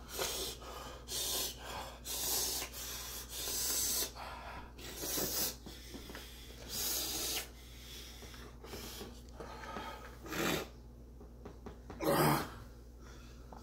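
A man's heavy, hissing breaths through the mouth, coming irregularly about once a second, with a louder breath near the end: his mouth is burning from an extremely hot chocolate bar.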